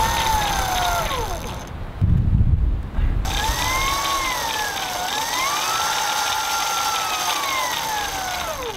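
Brushless electric motor of a 3D-printed RC ice vehicle whining, its pitch rising and falling with the throttle as the chain-driven big rear wheel spins on wet ice without traction. About two seconds in, a loud low rumble takes over for about a second while the whine drops out.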